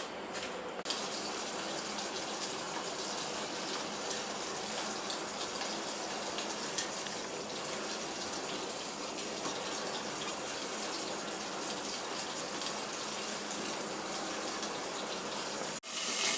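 Stuffed green chillies frying in hot oil in a covered pan: a steady sizzle with a few small crackles, cut off suddenly near the end.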